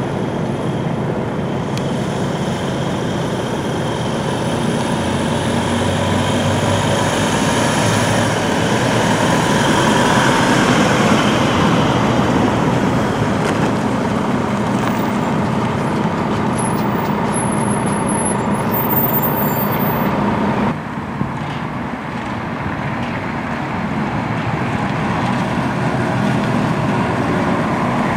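Bus engines running on a snowy road, with tyre noise: a small minibus driving past, then, after an abrupt cut about two-thirds of the way through, a coach's engine growing louder as it approaches.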